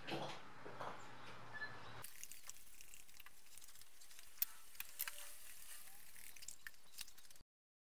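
Trigger spray bottle spritzing degreaser onto metal strut parts: a hissing spray with light patter and sharp little ticks. It starts about two seconds in and cuts off abruptly near the end.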